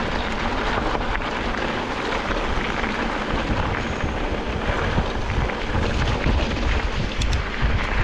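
Wind buffeting a handlebar-mounted action camera's microphone, mixed with the steady rumble and small rattles of a mountain bike rolling over a rough gravel dirt track.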